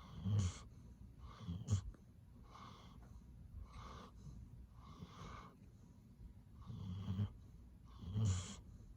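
Chocolate Labrador retriever snoring in its sleep: a low, buzzing snore on each breath, roughly once a second, with the loudest snores about half a second in, just before two seconds, and near the end.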